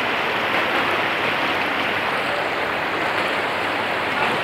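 Shallow river water rushing steadily over a stony bed.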